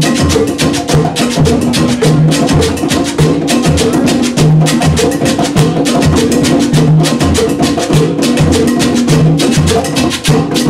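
Conga drums played by hand in a percussion ensemble: a fast, steady Latin rhythm of dense hand strikes with deep drum tones repeating through it.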